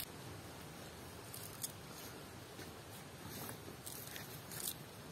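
Faint scattered rustles and light ticks of fresh coriander leaves being handled and dropped into a clay pot of cooked rice and vegetables, over a low steady hiss.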